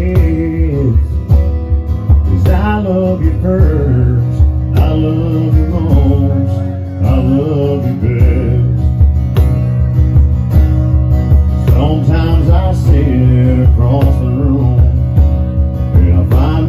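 Live country song: acoustic guitar strummed while a man sings, over a steady percussion beat.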